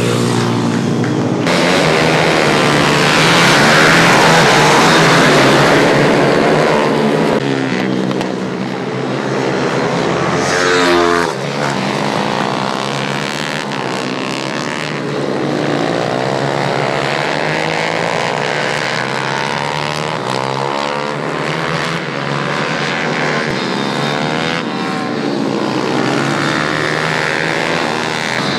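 Several small racing motorcycle engines revving hard as the bikes lap a tight circuit, their pitch rising and falling as they accelerate and pass. One bike passes close and loud a few seconds in, and another swoops past with a sharp drop in pitch about ten seconds in.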